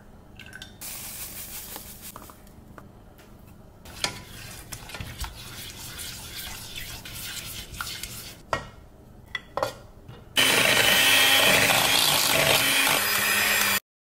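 A spatula stirs and scrapes thick egg cream in a steel saucepan, with a few light knocks against the pan. About ten seconds in, an electric hand mixer starts with a steady whir, the loudest sound here, then cuts off suddenly after about three seconds.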